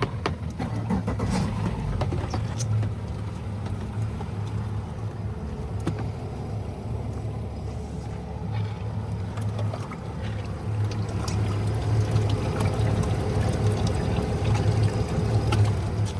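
Outboard engines of a 2021 Robalo R272 boat running steadily with a low drone, getting somewhat louder about eleven seconds in.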